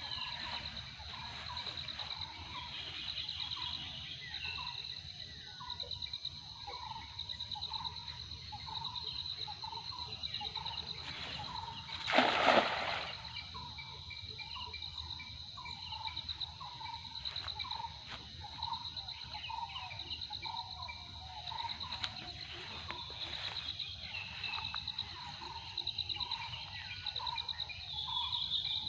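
Outdoor river ambience of insects trilling steadily and birds chirping. About twelve seconds in there is one loud splash, a cast net hitting the water.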